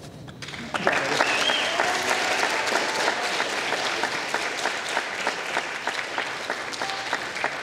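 Audience applauding, the clapping starting about a second in and slowly dying down near the end.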